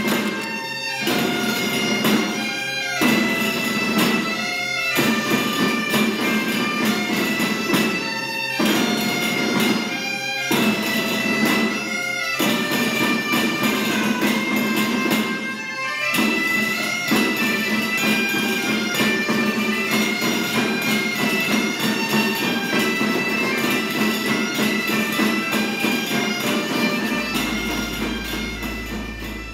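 Bagpipe music: a steady drone under a piping melody, the melody breaking off briefly several times in the first half. A low hum comes in near the end.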